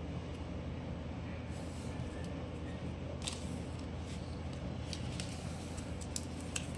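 Steady low background hum, with faint clicks and light handling noise from about three seconds in as small plastic toys and a plastic Kinder Joy egg are picked up and handled.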